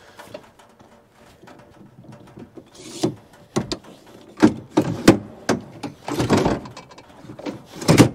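Ford F-450 tailgate step being folded away: a series of clacks and knocks as the handle and the metal step collapse into the lowered tailgate, with a rattling scrape in the middle. A loud clunk comes near the end as the tailgate is lifted.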